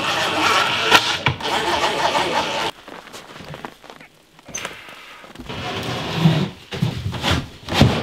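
Cordless drill running as screws are driven into a plywood cabinet box, stopping abruptly about three seconds in. A few knocks and thumps follow near the end as the cabinet is set into place.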